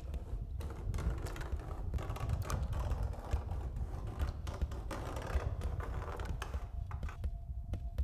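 Foley footsteps: a dense crackling of feet on dry leaves and branches, fading out near the end, over a steady low wind rumble.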